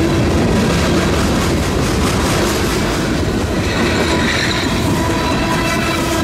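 Freight train's boxcars, coil cars and tank cars rolling past close by, their steel wheels clattering and rumbling over the rail joints without a break. A few steady thin tones ring over the rumble.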